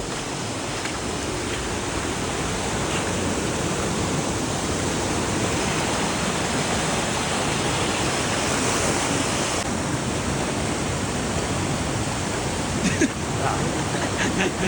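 Steady rush of flowing water, a continuous hiss across the whole range.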